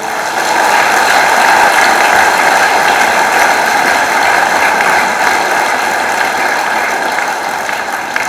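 A large audience applauding. The clapping starts suddenly and tapers off slightly near the end.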